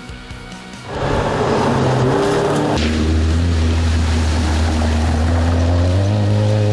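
A GAZ Volga rally car driving hard through a shallow water crossing. Engine noise and splashing water come in about a second in, then the engine holds steady, high revs.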